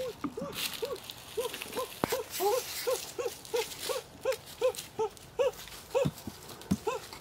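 A small animal calling over and over: short notes that rise and fall in pitch, about three a second, evenly spaced. A few soft knocks come in between.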